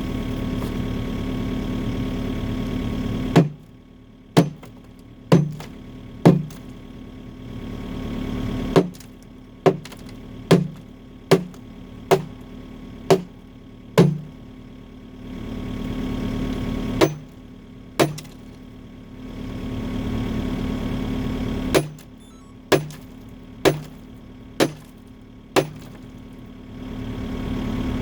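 Excavator bucket striking concrete again and again, sharp knocks about one a second in runs of several strikes, each with a short ringing tail. Between the runs the excavator's diesel engine runs steadily, and it drops back while the strikes land.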